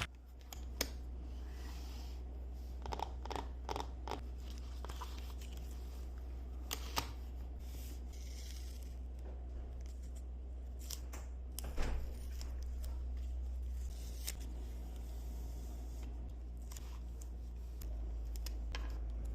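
Journal-making handling sounds: scattered snips, peels and paper rustles, busiest about twelve seconds in, over a steady low hum.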